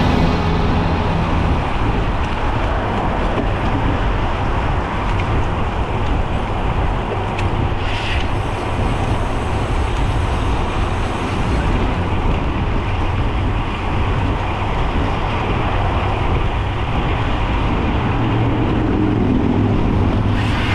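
Steady rushing wind and road noise from a road bicycle moving at speed, with motor traffic passing alongside.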